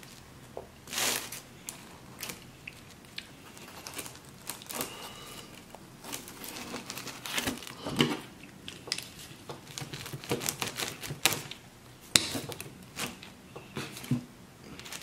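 Close-miked eating sounds: crinkly tearing and crackling as pizza is pulled apart by hand, with scattered sharp clicks and smacks.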